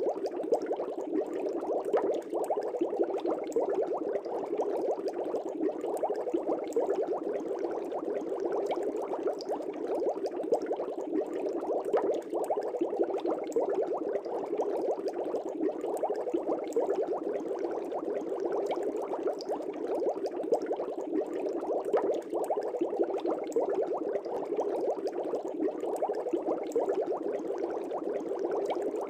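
Aquarium air bubbles rising through the water of a fish tank: a steady, dense bubbling with many small pops.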